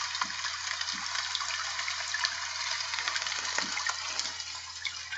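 Steady rushing water noise like falling rain, running evenly under everything, with a few soft knocks as a picture book is handled.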